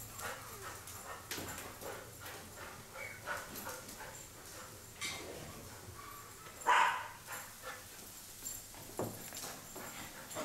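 A dog gives one short bark about two-thirds of the way in, among faint scattered taps and rustles.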